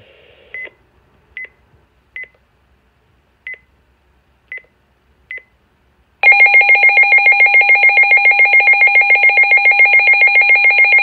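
Midland WR-300 weather radio: a few short key beeps as its buttons are pressed, then about six seconds in its alert siren test sounds, a loud warbling tone pulsing about nine times a second that cuts off near the end.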